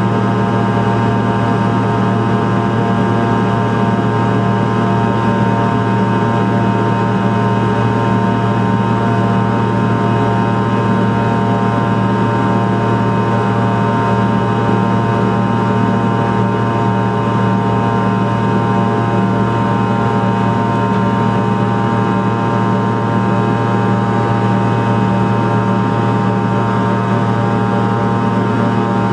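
Fokker 100's Rolls-Royce Tay turbofan engines running at high thrust: a loud, steady drone with a stack of unchanging tones that holds throughout without rising or falling.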